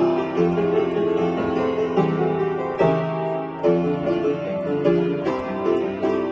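Upright piano played: a melody over chords struck with a steady beat.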